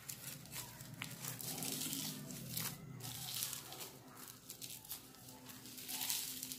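Plastic raffia strips rustling and crinkling in repeated short swishes as they are rolled and twisted by hand into a spinning-top cord.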